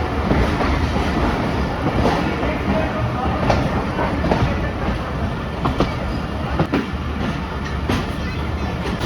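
Passenger train coaches running on the track, a steady rumble with irregular sharp clicks of the wheels over rail joints.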